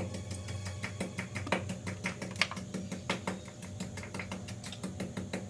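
Cooking oil being poured into a wok and starting to crackle, with many small irregular pops over a steady low hum.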